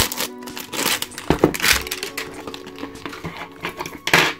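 Clear plastic shrink-wrap crinkling and crackling in the hands as it is peeled off a toy container, with a few knocks from handling and a louder crackle near the end.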